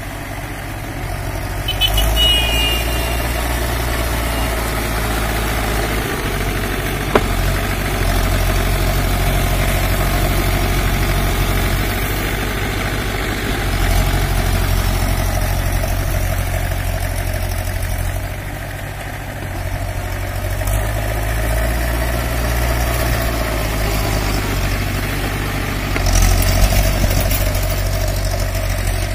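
Mahindra 275 DI tractor's three-cylinder diesel engine running under load as its steel cage wheels churn through wet clay, the engine's drone swelling and easing every few seconds. A single sharp click comes about seven seconds in.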